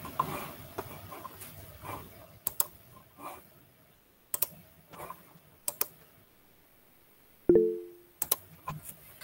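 Scattered computer keyboard and mouse clicks, then about seven and a half seconds in a short chime: the Google Meet notification for a new chat message.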